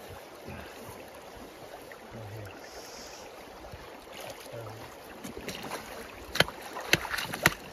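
Shallow creek water running and lapping over stones. From about five and a half seconds in, a quick run of sharp clicks and knocks, louder than the water.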